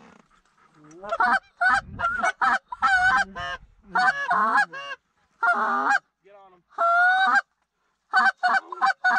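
Canada goose calls blown hard and close: runs of short, rapid clucks and honks, with two longer drawn-out honks about halfway through and a few fainter honks between them.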